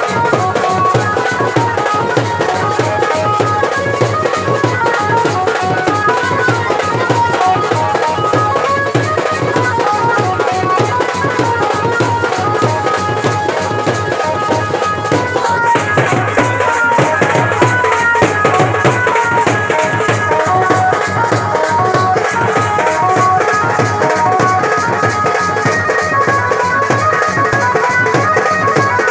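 Loud live folk dance music: stick-beaten drums keeping a steady beat under an electronic keyboard melody, played out through a horn loudspeaker.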